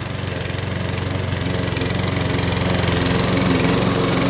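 Petrol rotary lawnmower's 141cc Webb OHV four-stroke engine running steadily, growing gradually a little louder.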